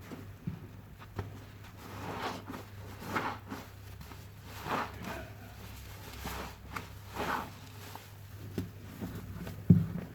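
A soapy, foam-soaked sponge squeezed by hand about five times, each squeeze a wet squelch. A single sharp thump comes near the end.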